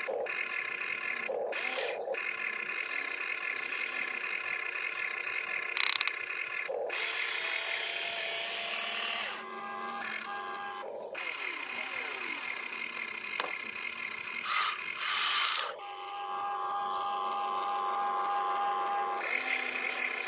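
Electric gear motors of a toy RC excavator whining steadily as it digs, swings its boom and moves its bucket, the pitch shifting as each motion starts and stops, with a few louder noisy bursts of loose stones and dirt as the bucket scoops and drops its load into the RC dump truck.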